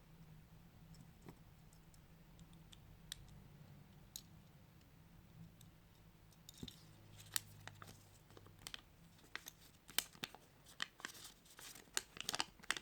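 Small plastic pieces of a Kinder Surprise toy clicking and snapping as they are fitted together by hand. The clicks are sparse at first and come thick and fast from about halfway in, over a faint low hum.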